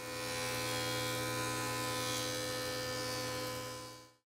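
Stationary woodworking machine running steadily, a buzzing hum that fades in at the start and fades out shortly before the end.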